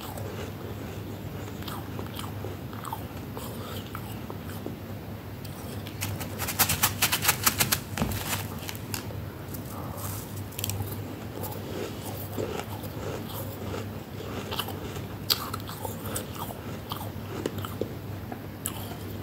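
Flaky freezer frost being bitten and chewed, crisp crunching close to the microphone. A quick run of about ten loud crunches comes about six to eight seconds in, with softer scattered crunches before and after, over a low steady hum.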